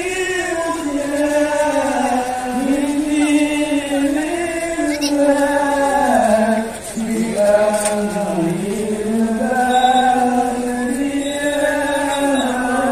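Voices chanting in unison, long held notes that rise and fall, with a brief break a little past halfway; typical of a devotional chant sung to welcome an arriving preacher.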